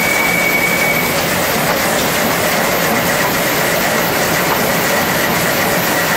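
Belt-driven line shafting running, with its overhead shafts, pulleys and flat belts making a steady, dense mechanical clatter. A thin high squeal fades out about a second in and comes back faintly later.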